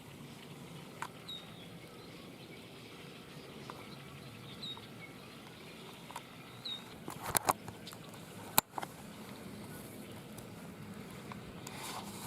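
Birds gathering at a roost give short high chirps every second or two. A few sharp clicks come near the middle and are the loudest sounds.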